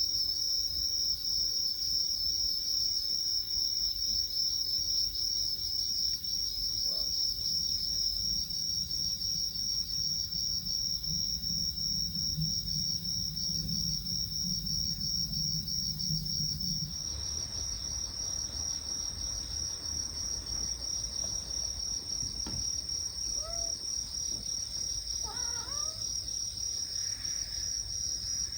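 Insects, crickets by the sound of it, chirping in a steady high, fast-pulsing trill. A few faint short calls come near the end.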